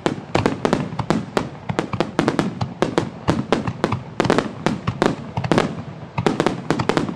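Aerial firework shells bursting in a rapid barrage, several sharp bangs a second overlapping one another.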